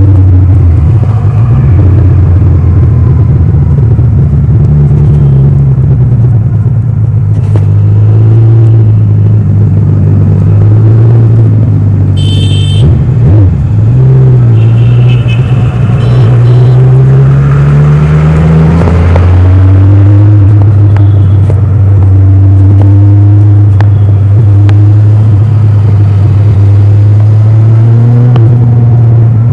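Kawasaki Ninja 1000's inline-four engine through its stock exhaust, running under way at steady revs; a little past the middle the pitch rises for a few seconds as it accelerates, then holds steady again.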